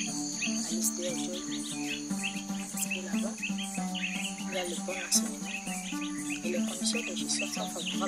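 Steady high-pitched insect chorus with birds chirping throughout, over soft background music holding low sustained notes. A single sharp click stands out about five seconds in.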